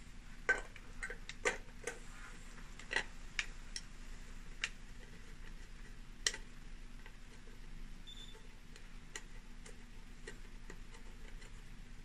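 Scattered light clicks and taps of a data cable connector being fitted into the back of a small plastic thermal printer held in the hand, with a sharper click about six seconds in and only faint ticks after.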